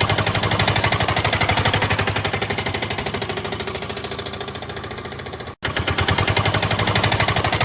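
Rapid, even pulsing of a running engine, like a heavy diesel idling. It fades slowly over about five seconds, cuts out for an instant, then comes back at full level.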